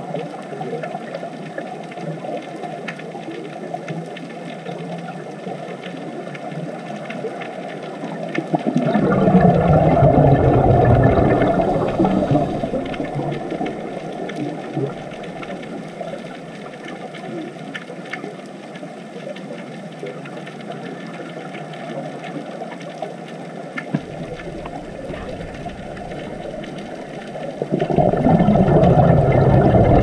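Underwater ambience: a steady, muffled wash of noise that swells into a louder rumbling surge about nine seconds in and again near the end.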